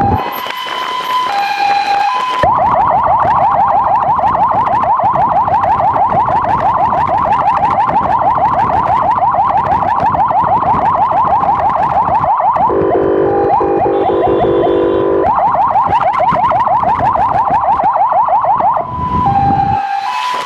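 Emergency siren switching modes: a two-tone hi-lo alternation at first, then a fast rising yelp repeating several times a second. In the middle a lower steady horn-like tone sounds for a couple of seconds before the yelp resumes, and it goes back to the two-tone hi-lo near the end.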